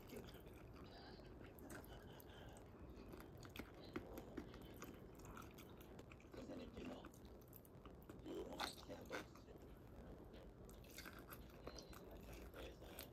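A person chewing and biting food, faint, with scattered short clicks; the loudest bites come a little past the middle.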